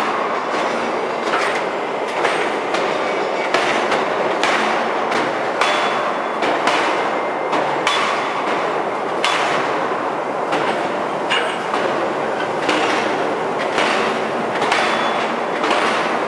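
Open-die forging machine repeatedly striking a red-hot nickel-alloy hollow forging. There is a sharp knock about once every second to second and a half over a steady loud mechanical din.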